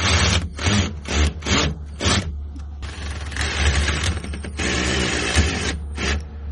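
Hand-tool scraping and rasping: about six short strokes in quick succession, then two longer, steadier scrapes after a short pause, with a steady low hum underneath.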